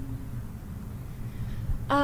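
A pause in a talk: a low, steady rumble of room and microphone noise, with a woman's voice starting again near the end.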